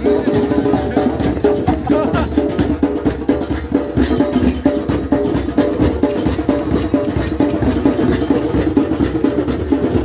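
Percussion music: drums and sharp struck percussion keeping a fast, steady beat under a held melodic line.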